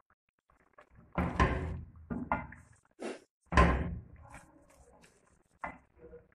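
A spatula scraping and knocking against a stainless-steel pan as chicken in tomato paste and oil is stirred and sautéed (bhuna). There are four sharp scrapes and knocks, the loudest about three and a half seconds in, with fainter scraping between them.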